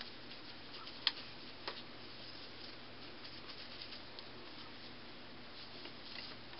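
Faint rubbing and small scattered clicks of a wet cloth rag being wiped along a metal curling iron barrel, with two sharper clicks about a second in.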